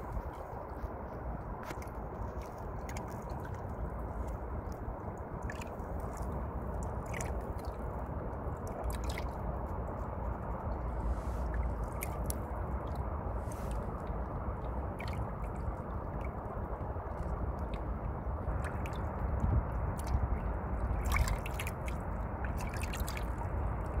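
River water lapping and dripping at the bank, with many small splashes and ticks over a steady low rumble.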